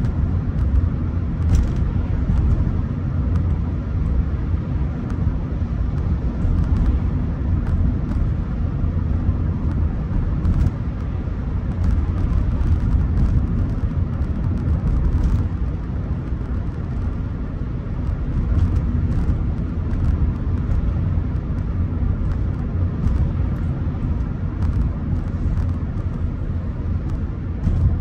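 Steady low rumble of a Rolls-Royce Silver Spirit being driven: engine and road noise at an even cruise.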